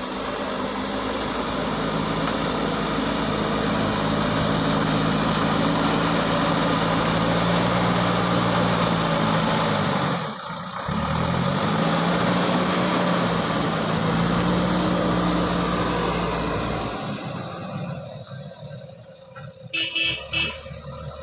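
Heavy diesel engine running hard under load. Its speed sags sharply about halfway through, then picks back up, and the engine sound dies away near the end. A few short horn toots sound just before the end.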